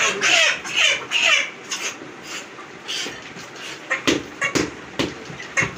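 Chickens squawking in alarm while being caught by hand, then a quick run of sharp wing flaps and knocks about four seconds in.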